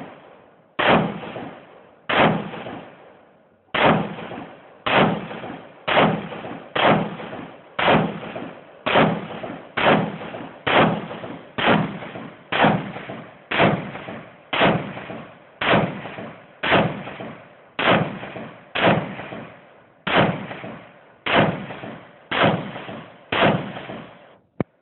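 A rifle fired in steady rapid succession, about one shot a second, some twenty shots in a row, each shot trailing off in echo before the next.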